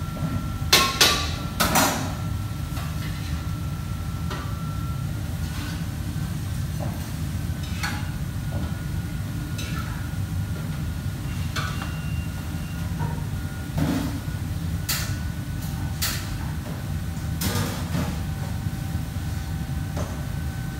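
Commercial kitchen at work: a steady low rumble, with sharp clanks of metal pans, woks and utensils, a loud cluster about a second in and several more late on.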